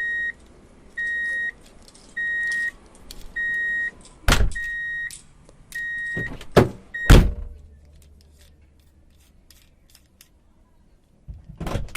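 Electronic beeping: a steady high beep of about half a second repeating about once a second, seven times, stopping about seven seconds in. A few sharp knocks come in the second half of the beeping, and a couple of thumps near the end.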